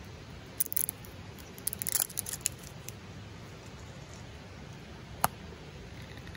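A small glass jam jar handled in the hands: quick clicks and rustles at the lid and label in two short clusters about one and two seconds in, then one sharp click about five seconds in.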